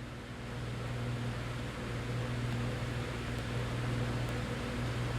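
Steady low hum under a soft even hiss, like a running fan or other mains-powered machine, growing a little louder about a second in.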